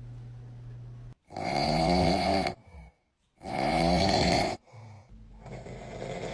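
An adult man snoring: two loud, drawn-out snores about a second apart, then a softer third snore near the end.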